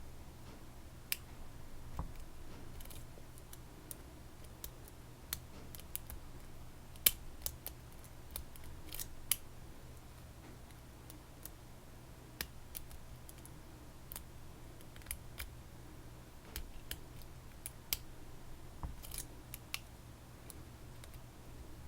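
Lock pick and tension wrench working the pins of a Stanley padlock: irregular small metallic clicks and light scrapes, the sharpest about seven seconds in, over a steady low hum.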